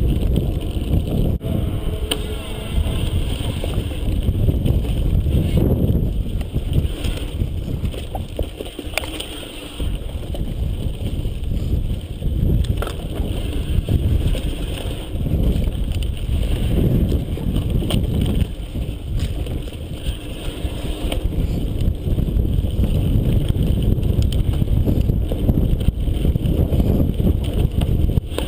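Mountain bike riding along a dirt trail: a loud, uneven low rumble of wind buffeting the GoPro's microphone and tyres rolling over the ground, with the odd sharp click or rattle from the bike.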